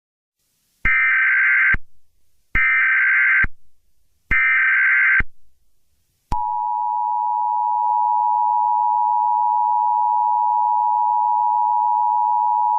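Emergency Alert System tones: three bursts of SAME digital header data, each about a second long, then from about six seconds in the steady two-tone EAS attention signal. They mark the start of a new emergency alert.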